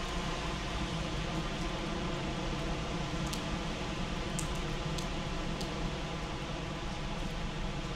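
Heavy rain pouring onto a wet paved street: a steady, even hiss of rain, with a few sharp drip ticks standing out over it a few seconds in.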